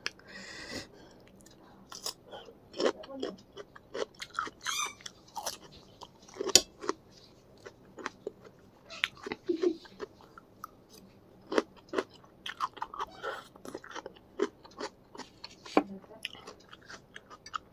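Close-up chewing and biting of a mouthful of Buldak spicy instant noodles: irregular wet mouth clicks and smacks.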